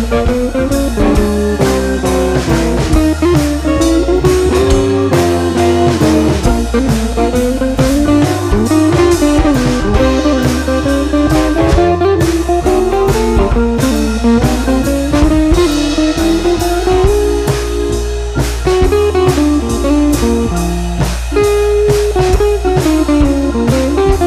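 Background music: guitar over a drum kit, with a steady beat and a sliding melody line.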